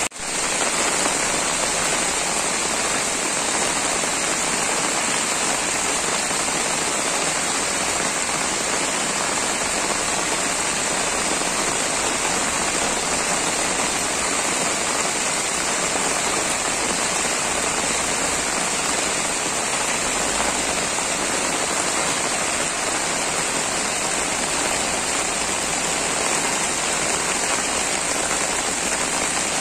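Heavy rain pouring onto a flooded road, a steady, even hiss of rain, with a momentary dropout at the very start.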